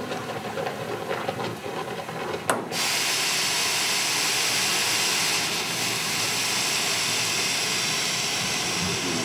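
Steam hissing steadily from a valve on an old low-pressure steam boiler. It starts suddenly after a click about two and a half seconds in, as steam is let through to heat the alembic for distilling.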